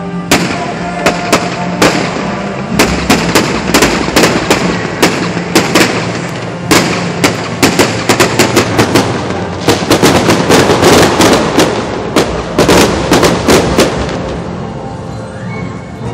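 Fireworks going off in quick succession, dozens of sharp bangs and crackles, densest about two-thirds of the way through and dying away near the end, with music playing underneath.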